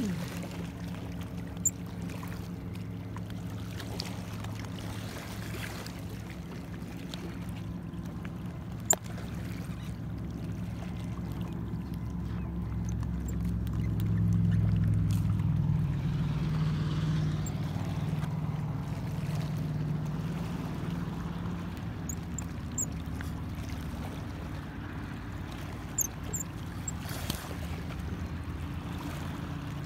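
Motorboat engine droning steadily across the water, growing louder about halfway through and then easing off, with a few sharp clicks.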